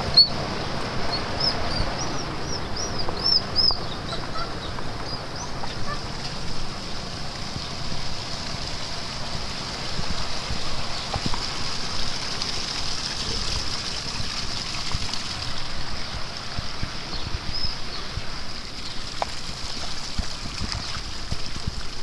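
Steady rushing outdoor noise, with a quick run of short, high bird chirps in the first few seconds and a few more later.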